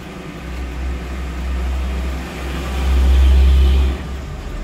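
Low rumble of a car driving, heard from inside the cabin. It swells over the first few seconds and drops off sharply about four seconds in.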